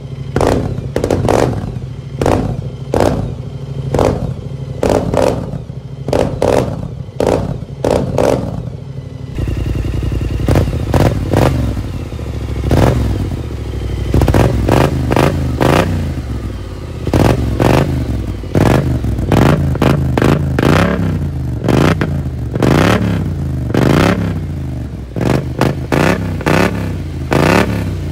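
BMW C 650 maxi-scooter's parallel-twin engine blipped repeatedly through aftermarket silencers: quick short revs through a LeoVince can for about the first nine seconds, then rising-and-falling revs through a Malossi can.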